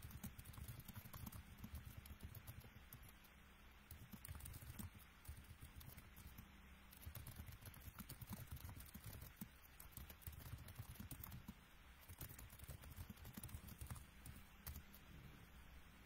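Near silence: room tone with faint, irregular clicks and low taps scattered throughout.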